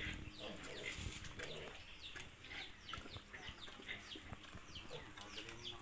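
Birds chirping: a steady run of short, falling chirps, a few a second, over faint irregular low farmyard noises.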